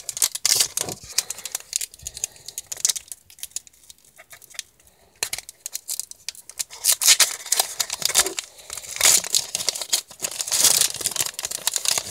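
Foil wrapper of a Pokémon trading card booster pack being torn open and crinkled by hand, in irregular bursts of crackling. It eases off for a few seconds after the start, then grows louder in the second half.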